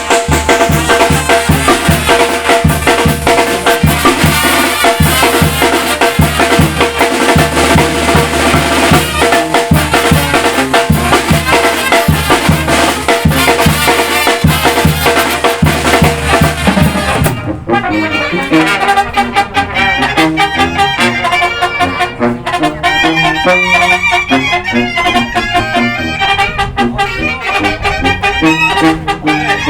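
Banda brass band playing: trumpets and trombones over a tarola snare drum and a steady low bass beat. About seventeen seconds in the low beat stops abruptly and the music goes on in a lighter section.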